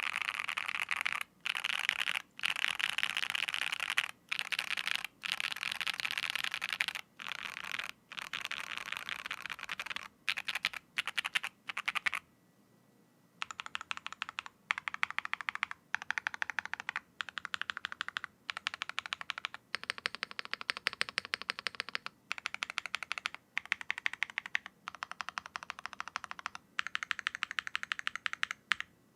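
Fast typing on a Class 60 mechanical keyboard with Pink Robin switches, an aluminium plate with plate foam and PBT keycaps: runs of rapid key clicks in short bursts with brief pauses between them, and a pause of about a second near the middle.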